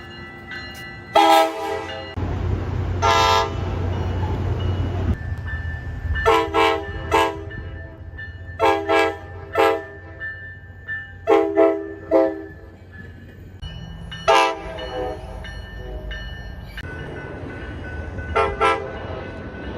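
Tri-Rail commuter train horns sounding a series of short blasts, mostly in quick groups of two or three, with a low train rumble under several of them.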